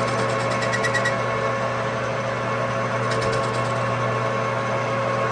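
Metal lathe running steadily with an even hum, with two short runs of rapid ticking: one at the start lasting about a second, and another about three seconds in.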